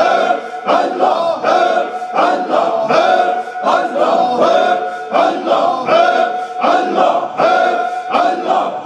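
A group of men chanting dhikr together in unison, repeating a short phrase in a steady rhythm about twice a second.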